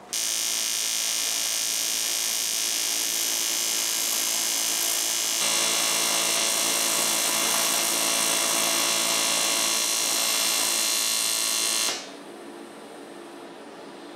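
AC TIG welding arc on 3 mm aluminium, a steady electric buzz, welding up pinhole leaks found in the fuel tank's pressure test. It gets a little louder about five seconds in and cuts off sharply about twelve seconds in.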